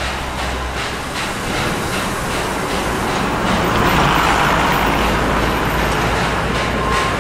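SY class 2-8-2 steam locomotive working hard with a loaded coal train, its exhaust beating in a regular chuff over a low rumble. About halfway through, a loud hiss of steam swells up as the cylinder drain cocks blow.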